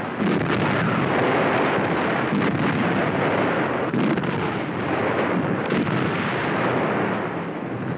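Artillery firing: a steady rumble of heavy gunfire with sharper reports about four and six seconds in, on an old, hissy film soundtrack.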